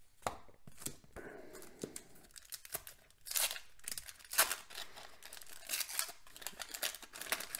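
Waxed paper wrapper of a 1989 Donruss baseball card pack being torn open and crinkled by hand, a run of short crackling tears and rustles that grow louder and more frequent about halfway through.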